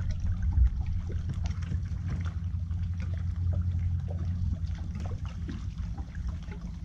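Steady low rumble with faint trickling and lapping of water around a boat hull, and scattered small ticks.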